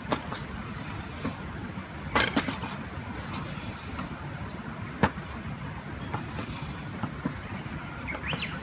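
Wood campfire burning: a low steady rumble with scattered sharp crackles and pops, a cluster of them about two seconds in and a single loud pop about five seconds in.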